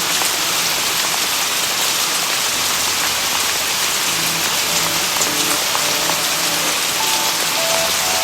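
Steady heavy rain on surfaces with scattered faint crackles from a wood fire. Soft, slow music notes come in during the second half.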